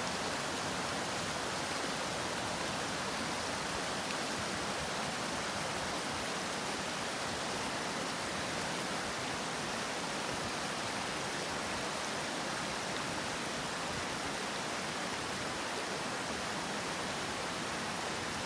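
Mountain creek rushing at high flow, swollen with recent rain and snowmelt: a steady, even roar of fast-moving water.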